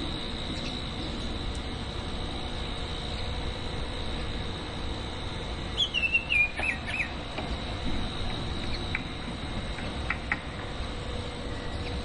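Male Baltimore oriole singing a short phrase of whistled notes that slide up and down, about six seconds in, followed by a few brief single notes. A steady low rumble runs underneath.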